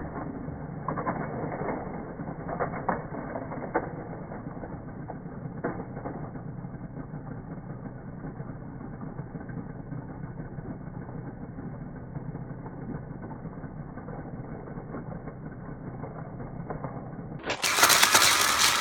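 Slowed-down, muffled clicking and rattling of Hot Wheels toy cars and plastic track, over a steady low rumble, busiest in the first few seconds. Near the end a louder, brighter sound cuts in suddenly.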